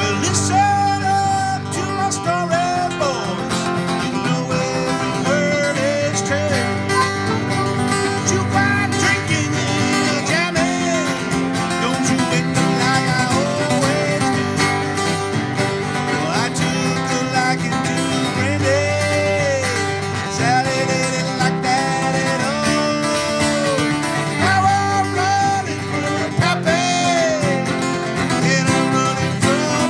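Several acoustic guitars strumming a bluegrass song, with a harmonica playing a lead line of bending notes over them.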